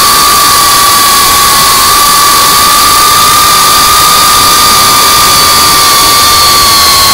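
GEPRC CineLog35 FPV quadcopter's brushless motors and 3.5-inch propellers whining steadily at cruising throttle, under a constant rush of wind noise. The whine holds one high pitch that drifts only slightly.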